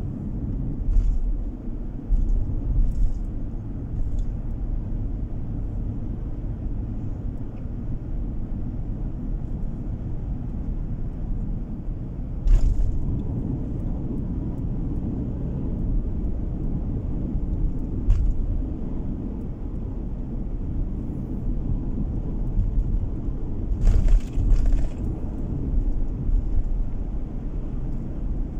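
Car driving on a paved road, heard from inside the cabin: a steady low rumble of engine and tyre noise, with a few short sharp knocks scattered through it.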